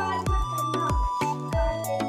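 Background music with a steady beat of low drum hits under held melodic notes.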